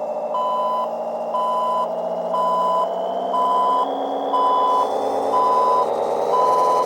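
Synthesized diesel truck engine sound from a homemade Arduino/ESP32 RC-truck sound module, its pitch slowly rising, with an electronic reversing beeper sounding about once a second, each beep about half a second long.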